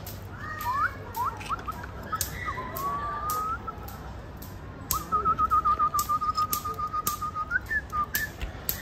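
Whistling: a few short sliding notes, then from about halfway a long warbling trill at one pitch, the loudest part, with a couple of quick upward notes at the end. Sharp clicks are heard scattered throughout.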